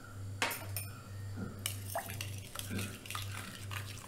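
A spoon clinks twice against a glass bowl, then stirs curd and spices with quick scraping strokes against the glass, under a low pulsing hum.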